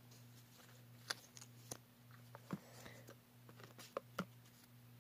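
Tarot cards handled and flipped one by one, their edges giving a few soft clicks and snaps, over a steady low hum.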